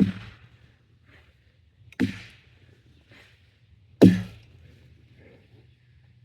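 Axe striking wood: three heavy chopping blows about two seconds apart, the last the loudest.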